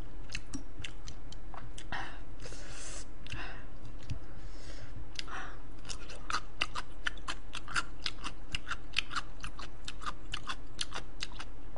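Close-miked chewing: a quick run of wet mouth clicks and smacks, about three or four a second, with a couple of soft rushing sounds in the first half.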